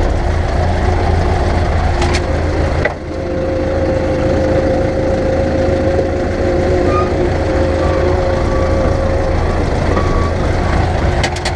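Ursus tractor's diesel engine running, heard from inside the cab while the tractor is manoeuvred back. A knock about three seconds in, then a steady whine for several seconds.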